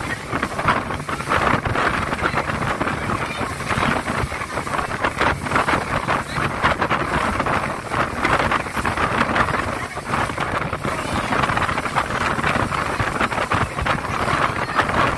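Motorboat under way at speed: wind buffeting the microphone over the steady drone of the engine and the rush of water.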